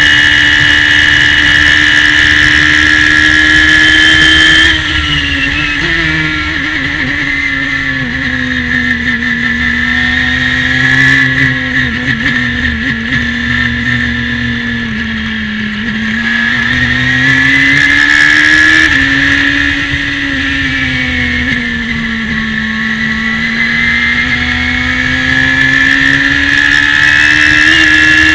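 Radical SR3 race car engine at high revs under full throttle, heard from the cockpit with wind rushing past. About five seconds in the driver lifts off and the note drops sharply for braking and downshifts. The revs then rise and fall through the corners, with a sudden step near the middle that sounds like a gear change, and climb again toward the end.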